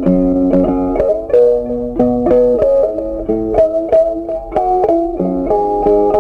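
Background music: a guitar playing a melody of plucked notes.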